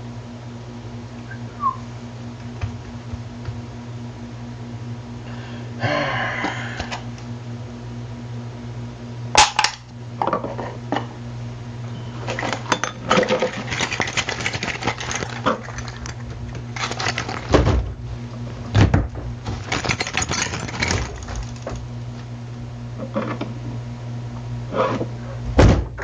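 Foley props being handled and struck by hand: scattered clinks, knocks and clatter of small hard objects, with stretches of scraping and rustling, over a steady low hum.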